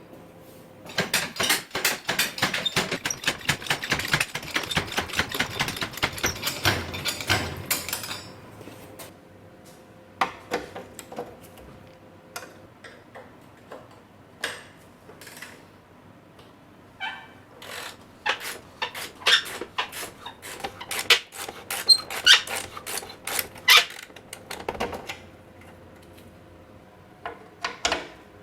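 Hand tools working on metal parts: a rapid run of clicking for several seconds, then scattered single clicks and knocks.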